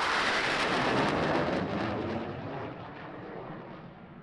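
Jet noise from an F/A-18 Hornet fading away after a close pass: a rumble with no clear tone in it that dies down steadily over a few seconds, its hiss falling away first.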